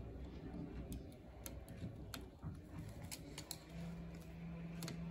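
Scattered light clicks and ticks of needle-nose pliers working thermostat wires into the push-in terminals of a Honeywell 9000 wallplate. A low steady hum starts about three-quarters of the way through.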